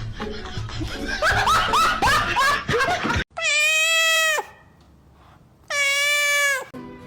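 Music with many short rising calls for about three seconds, then a cat giving two long, loud meows, each held on a steady pitch for about a second.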